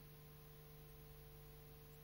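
Near silence: a faint, steady hiss and hum.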